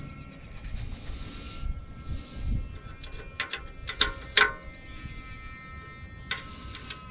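Stainless steel bolts, washers and nuts clinking against a stainless exhaust pipe flange as they are fitted by hand: a few sharp metallic clinks with a short ring, several close together from about three seconds in and two more near the end, over low rumbling handling noise.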